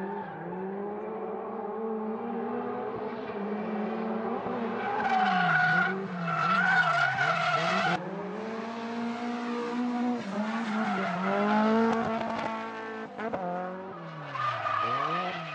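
Nissan Silvia S15 drifting. The engine revs rise and fall again and again as the throttle is worked through the slides, and the tyres squeal and scrub, loudest around the middle.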